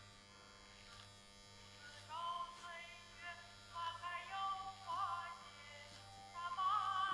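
Electric hair clippers buzzing steadily with a low hum as they run over a man's head. About two seconds in, music comes in: a slow, high melody with vibrato that grows louder and soon drowns out the clippers.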